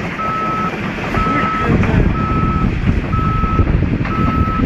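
A heavy vehicle's reversing alarm beeping, one steady half-second beep about every second, five in all, over the low rumble of its engine.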